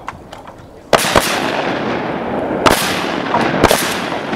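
Shotgun blasts from duck hunters firing at a passing flock: four shots starting about a second in, the first two close together, then two more spaced about a second apart. Each shot is followed by a long rolling echo.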